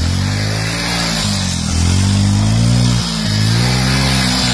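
Small single-cylinder motorcycle engine revved hard in surges, its pitch climbing and falling back three or four times as the bike is spun round on grass, with a steady high hiss over it.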